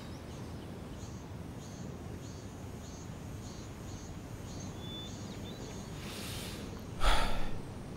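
Outdoor ambience: a steady low hiss with faint, high chirps repeating about twice a second. A brief rush of noise comes near the end.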